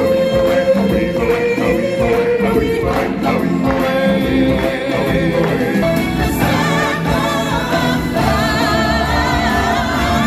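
A choir and singers performing with a band and drums: upbeat live show music with voices held on wavering notes over a steady beat.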